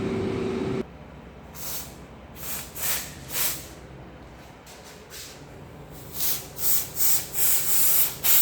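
Wagner steam cleaner's trigger valve letting out short spurts of steam, a few spaced out at first and then about three a second near the end: the freed piston is releasing steam again. A steady hum cuts off about a second in.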